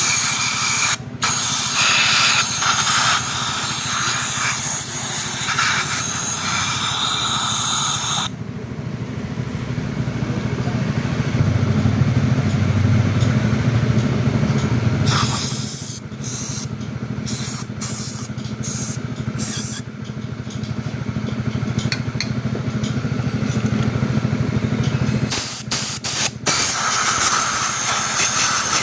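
Compressed air hissing from a blow gun aimed into a plastic fuel pump housing, blowing dirt out of its holes. A long blast stops about eight seconds in, then comes a run of short on-off bursts, and another blast near the end. A steady low hum runs beneath.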